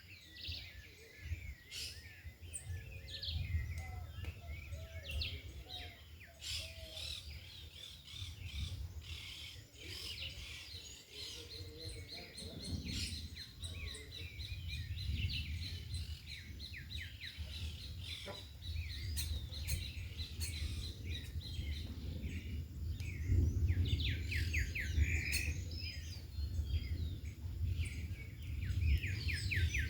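Several wild birds chirping and singing, with many short calls and quick trills overlapping. A low wind rumble on the microphone runs underneath and grows stronger in the last few seconds.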